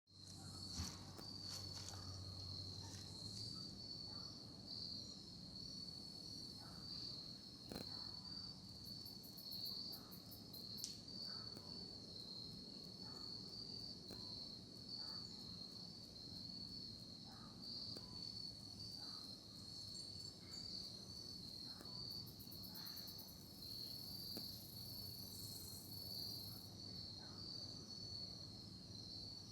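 A chorus of crickets chirping steadily in a high, pulsing trill, with faint scattered chirps beneath it.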